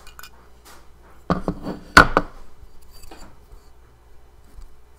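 Hard drive's metal platter being taken off the spindle and handled: a quick cluster of knocks and clinks of metal parts about a second and a half in, loudest around two seconds, then a lighter knock a second later.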